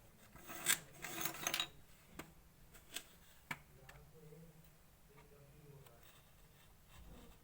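Clear slime being worked by hand: a short stretch of sticky crackling in the first two seconds, then a few sharp clicks and pops.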